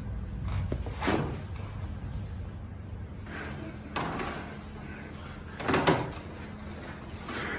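Short clunks and knocks from a chiropractic adjustment on a treatment table: one about a second in, another about four seconds in, and a louder double knock near six seconds, over a steady low hum.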